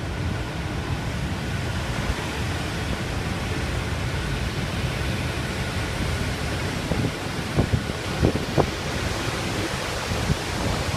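Typhoon wind blowing hard and steadily, with the noise of rough sea beneath it. Several gusts buffet the microphone in the second half.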